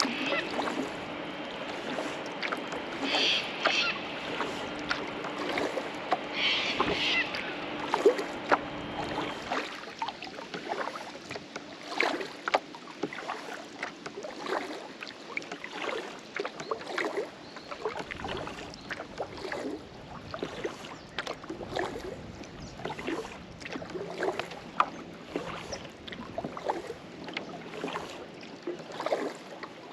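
Kayak paddling: the paddle blades dip and splash in the water at an uneven pace, with drips and small knocks against the boat.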